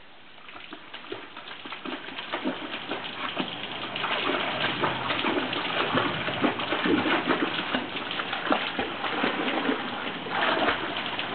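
Pit bull dog paddling in a swimming pool: steady splashing and churning water that grows louder over the first few seconds.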